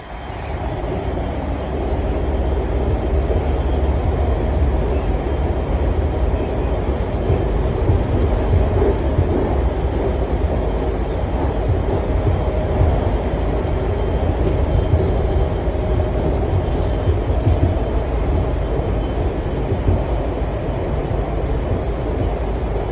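Washington Metro Red Line train running between stations, heard from inside the car: a steady, loud rumble of wheels on rail that builds over the first couple of seconds and then holds even.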